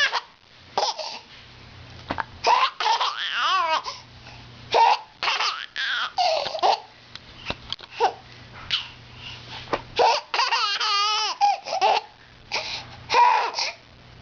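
Baby laughing in many short bursts while having the hiccups, the giggles broken by quick sharp hiccup sounds.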